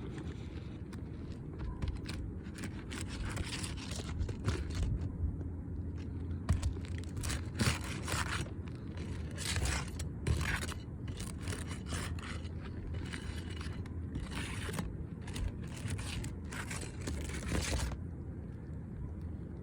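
Asphalt roof shingles being worked loose by hand: repeated short, irregular scraping and tearing strokes as the damaged shingle is pried and pulled free of its seal and nails.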